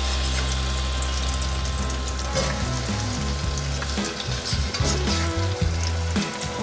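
Slices of egg-soaked challah bread sizzling and crackling in hot oil and butter in a cast iron skillet, while a metal spatula scrapes and clinks against the pan as the slices are flipped.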